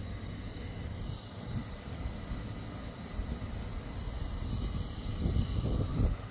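Handheld brazing torch burning steadily, a hiss over a low rumble, its flame heating an aluminum microchannel coil tube before the brazing rod goes on.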